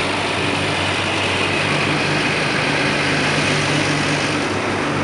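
Automatic tunnel car wash heard from inside the car's cabin: water spray and foam pelting the windshield and body in a steady, storm-like hiss, over a steady low machine hum.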